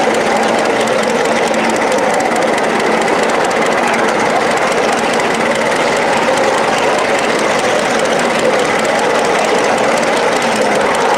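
A 1-inch scale live-steam 0-4-0 switcher locomotive and its riding car running along the track: a loud, steady, unbroken running noise.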